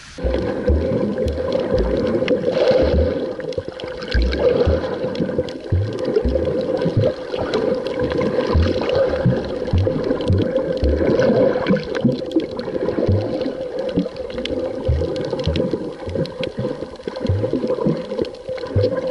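Muffled, churning water with a steady drone and irregular low thumps throughout.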